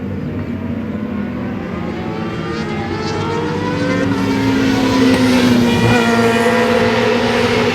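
Racing motorcycle engines on a track, more than one at once, their pitch sliding down and then climbing again as they shift through the gears. The engine sound grows louder from about four seconds in as a bike comes closer, and revs rise near six seconds in.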